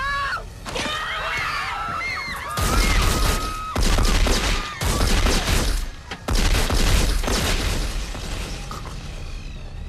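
A woman's scream, then a volley of loud gunshots in four heavy bursts of about a second each, with a deep low end, dying away near the end.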